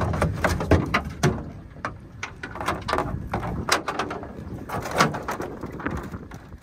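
A string of irregular knocks, clatters and splashes as a catfish is lifted from the water on a jug line and brought into a small boat. The sounds thin out near the end.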